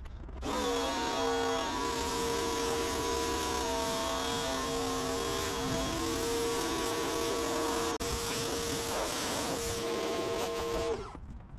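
A motor-driven car-wash machine switches on just after the start and runs with a steady whine over a loud hiss, briefly dropping out about eight seconds in and cutting off suddenly near the end.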